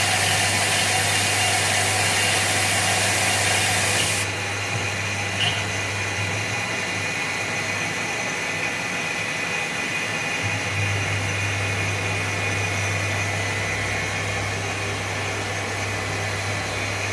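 Maho CNC milling machine running. A loud hiss cuts off about four seconds in, leaving the machine's steady hum and a high whine.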